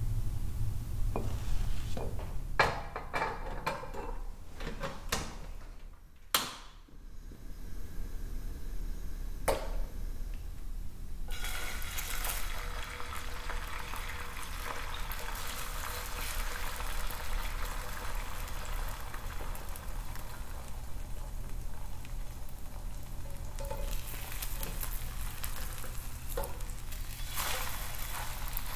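Kitchen cooking sounds: dishes and utensils clinking and knocking for the first few seconds, then from about eleven seconds in, food sizzling steadily as it fries in a pan.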